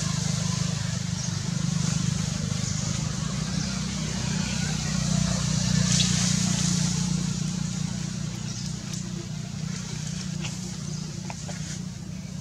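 A steady low engine drone under a constant outdoor hiss.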